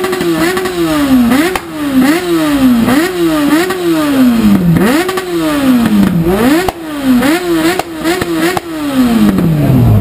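Yamaha R1 inline-four sport bike, fitted with a Leo Vince exhaust with its dB killer removed, revved hard in quick repeated blips: each a sharp rise and a fall, roughly one a second. Near the end the revs drop back toward idle.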